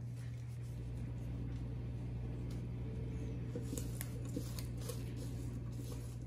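Gloved hands squishing and rubbing wet chili paste into napa cabbage leaves for kimchi: soft wet crackles and clicks, busiest around the middle, over a steady low hum.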